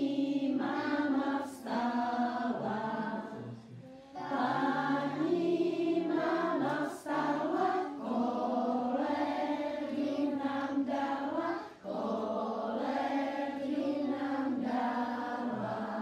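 A group of young children singing a song together, in phrases with short breaks about four and twelve seconds in.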